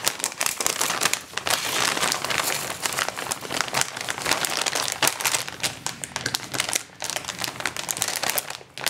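Grey anti-static plastic bag crinkling and crackling as it is handled and folded while a strip of transistors is put back inside. The crackle is almost continuous, with short lulls about seven seconds in and near the end.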